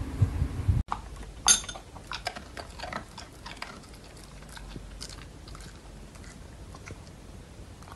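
A dog crunching and chewing food, with sharp clicks and crunches that are loudest just after the start and thin to faint chewing later. Before that, a brief low thudding stops suddenly under a second in.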